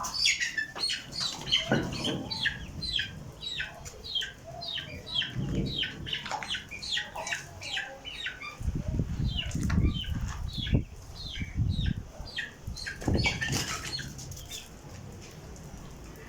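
A bird calling over and over in short downward-sweeping chirps, about two a second, thinning out near the end, with bursts of low rumbling noise underneath.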